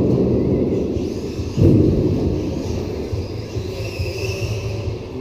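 Low rumble in a large hall, with a sudden thump about one and a half seconds in that dies away over a second or so, and the faint whine of a small electric RC car motor rising and falling near the end.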